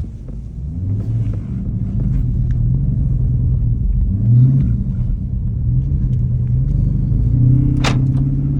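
Jeep Grand Cherokee's Hemi V8 engine pulling steadily under load through deep snow, its level and pitch rising about a second in and then holding. A short sharp click is heard near the end.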